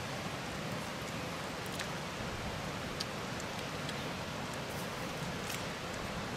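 Steady outdoor background hiss, with a few faint clicks about two, three and five and a half seconds in.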